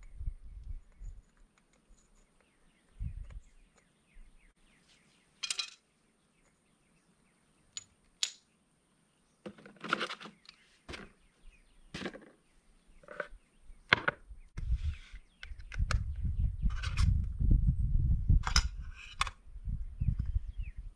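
Scattered clicks and knocks of items being handled and taken from a cardboard box, then a metal epoxy can's lid being prised off. A low rumble runs through the last few seconds.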